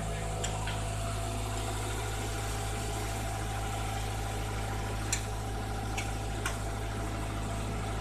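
Truck engine idling steadily, with a handful of short sharp metal clicks from a wrench working the nuts on the pole's anchor bolts.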